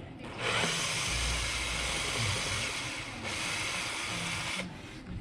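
Compressed air hissing from a pneumatic tool for about four seconds, thinning about three seconds in and cutting off near the end.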